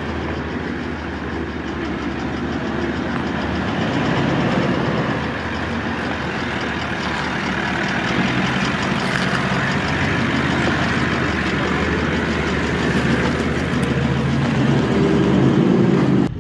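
Four-wheel-drive vehicle driving on a trail, its engine running steadily under a continuous noisy rumble.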